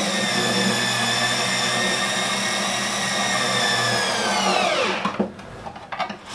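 Cordless drill with a long bit extension running at a steady speed while driving the structural screw of a floating-shelf bracket, then spinning down with a falling whine about four and a half seconds in, followed by a few faint clicks.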